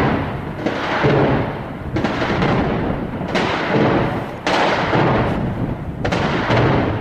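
Heavy weapons fire during shelling: a run of loud bursts, one about every second and a half, each starting sharply and echoing away over about a second.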